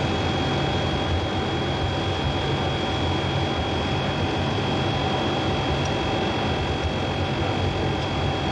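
Steady flight-deck noise of a Boeing E-3D Sentry in flight: a constant rush of air and engine noise from its four CFM56 turbofans, with a thin high whine and a low hum underneath.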